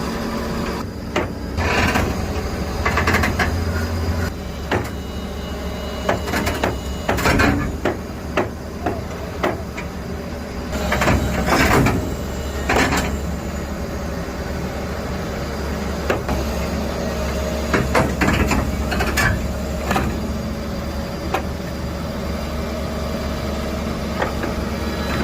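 Excavator engine running steadily, with repeated metallic clanks and knocks from the bucket and arm as it loads. The knocks are loudest and closest together about halfway through.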